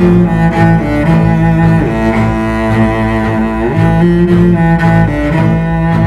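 Background music of low bowed strings, sustained notes that shift pitch every second or two.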